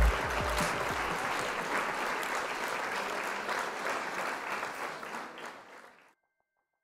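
Crowd applause with many hands clapping, fading away and ending about six seconds in.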